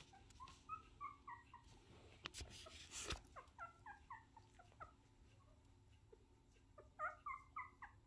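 Newborn puppy giving faint, short high-pitched squeaks and whimpers, in three runs of several cries each, with a couple of sharp clicks between the first and second runs.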